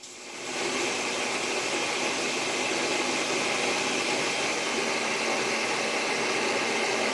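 Countertop blender running at a steady speed, pureeing cooked pumpkin.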